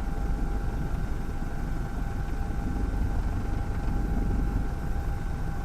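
Steady low rumble of a running engine, with a faint constant whine above it.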